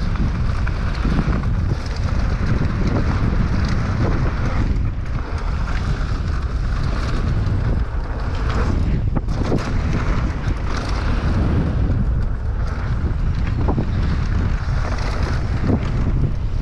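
Wind buffeting the camera microphone on a fast mountain-bike descent, over the hiss of tyres rolling on loose, dry dirt. The Specialized Enduro rattles and knocks as it runs over bumps and small jumps.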